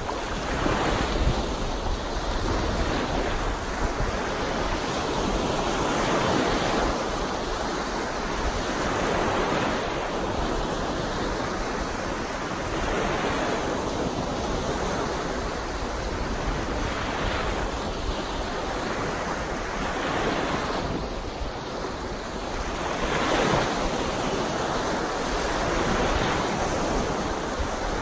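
Lake waves breaking and washing up a sandy beach, the surf swelling and easing every few seconds, with wind rumbling on the microphone.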